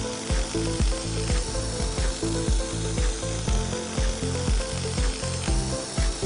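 Background music with a steady beat, over a steady hiss.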